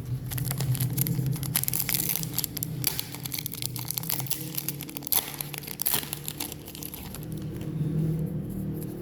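Foil wrapper of a Pokémon card booster pack crinkling and tearing as it is opened, a dense run of crackles that thins out after about seven seconds. A steady low hum runs underneath.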